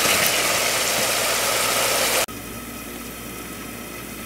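Chopped onions sizzling in oil in an Ethiopian clay pot (shekla dist), stirred with a wooden spoon. About two seconds in the sizzle cuts off suddenly, giving way to a quieter steady hum.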